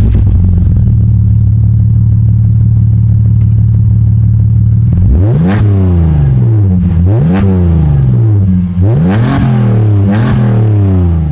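BMW E46 320Ci's inline-six engine idling steadily, then blipped four times from about five seconds in, each rev rising and falling quickly. The rear muffler has been partly cut open.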